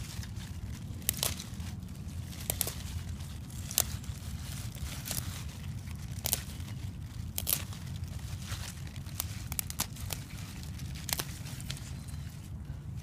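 Purple kale leaves and dry leaf litter rustling and crackling as leaves are picked from the plant by hand, with irregular sharp crackles and snaps over a steady low rumble.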